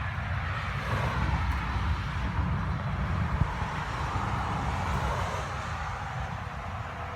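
Road traffic passing: a steady low rumble with tyre noise that swells twice, about a second in and again around the middle.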